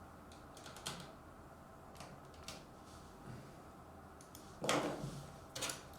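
Hands handling trading-card packaging at a table: a few faint clicks, then a brief louder rustle about five seconds in and another near the end.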